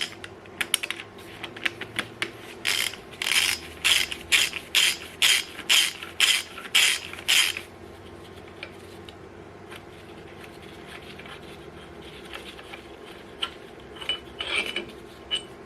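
Hand ratchet wrench clicking in repeated strokes, about two a second, loosening a cylinder head bolt that was missed. The strokes stop about halfway through, leaving faint scattered ticks and a few more clicks near the end.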